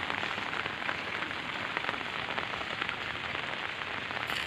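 Steady rain falling, a dense, even patter with no break.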